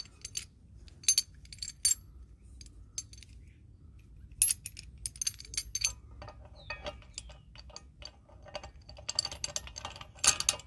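Short metallic clinks and rattles, in several brief clusters, of a steel chain flail's welded links knocking together and against the crusher's metal housing as its nut is turned onto the grinder spindle by hand.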